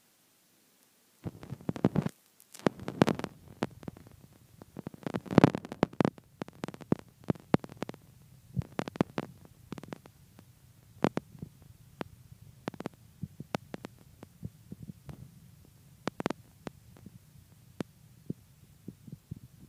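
Boston terrier snoring in its sleep, beginning about a second in: a short rattling snore with each breath, recurring every few seconds.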